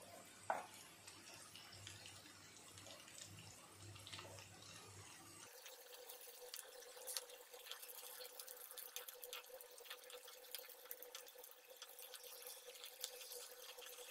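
Hot oil faintly sizzling and crackling around stuffed brinjals frying in a pan, the crackle growing thicker from about halfway through. A wooden spatula knocks once against the pan about half a second in.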